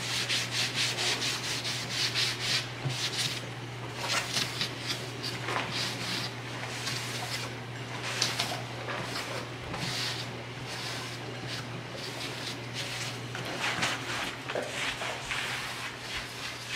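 Cloth rag rubbing wood stain onto a wooden wagon bed and slats: a run of repeated back-and-forth swishes, about one or two a second.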